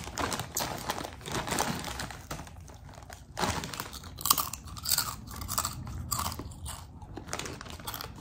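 Close-miked chewing of crunchy ridged potato chips (Ruffles Double Crunch), an irregular run of crisp crunches.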